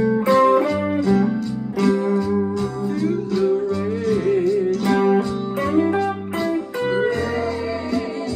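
Electric guitar playing an instrumental lead break over a bass line, its notes bending and wavering in pitch.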